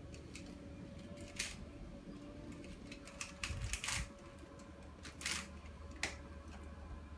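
Plastic twisty puzzle being turned by hand: a few separate clicks and short rasps of its layers turning, spaced irregularly, over a low steady hum.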